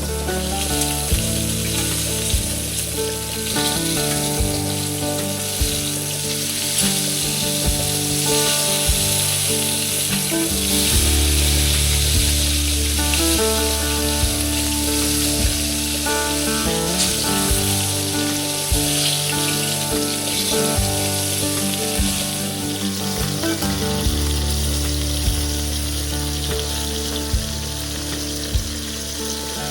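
Instrumental music with changing bass and melody notes, over a steady high hiss.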